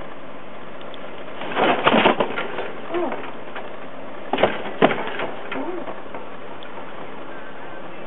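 A hand stroking a cat on soft bedding: a cluster of rustles against fur and fabric about a second and a half in, two sharp knocks a half-second apart around the middle, and two faint short low sounds, over a steady background hiss.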